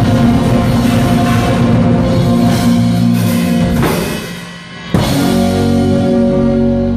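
Live rock band with drum kit, electric guitars and bass playing the close of a song. The playing thins out about four seconds in, then a final chord is struck about five seconds in and rings on.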